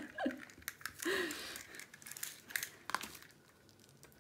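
Plastic cover film over a diamond-painting canvas crinkling and rustling as hands smooth it and lay a measuring tape across it, with a few sharp light clicks.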